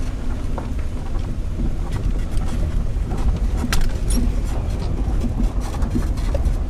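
Steady low rumbling noise, with a few faint clicks about three to four seconds in.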